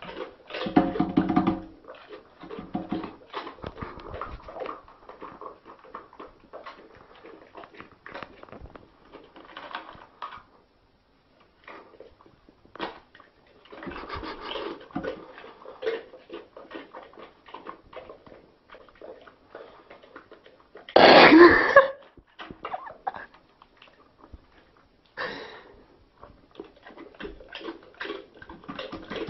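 A dog eating out of a small plastic tub: irregular wet chewing, licking and lip-smacking with snuffling breaths, broken about a second in by a short voiced grunt and around 21 seconds in by one much louder, longer noisy burst.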